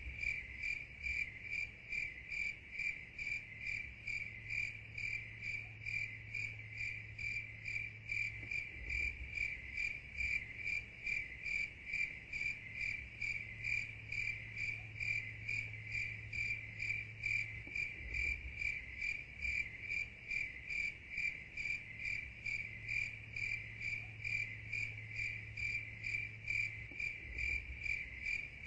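Crickets chirping in a steady, even run of high chirps, about two or three a second, with a faint low hum coming and going underneath.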